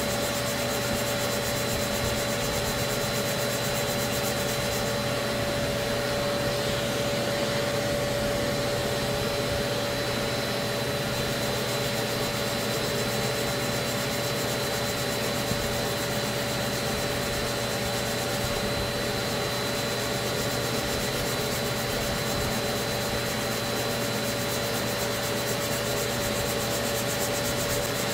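Small random-orbital sander running with a steady whine, its pad rubbing over body filler on a car panel with a continuous rasping hiss.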